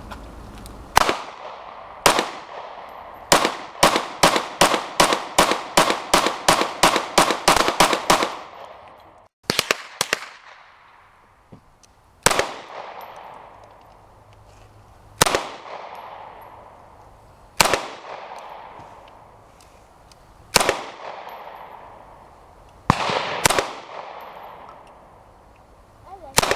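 Firearm shots, each trailing a long echo: two single shots, then a rapid string of about a dozen at roughly two to three a second, then slower single shots every two to three seconds.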